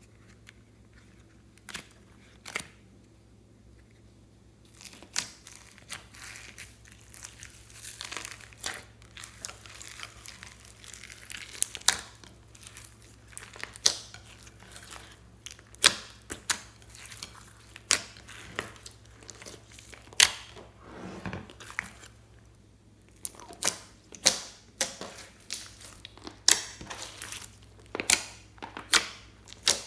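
Slime being kneaded and pressed by hand, crackling with sharp pops about every two seconds. It is nearly quiet for the first few seconds, and the pops come closer together near the end.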